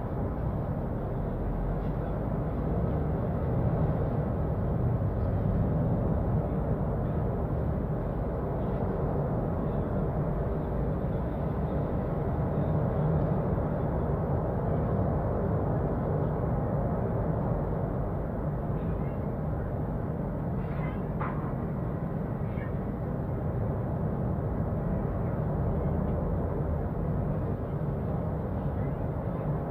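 Steady low rumble of the Cumbre Vieja fissure eruption heard from a distance: a continuous deep roar of the erupting vent with no letup, with a few faint brief higher sounds about two-thirds of the way through.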